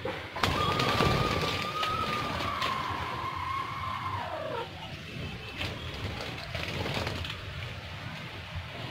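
Budgerigars chirping and splashing while bathing in a tub of water, over a long steady whistle-like tone that slides down in pitch about halfway through.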